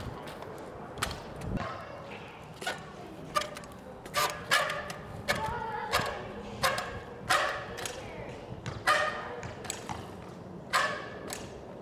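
BMX bike hopping on a hard court, its tyres and frame knocking down in a series of sharp thuds, roughly one every two-thirds of a second through the middle of the stretch.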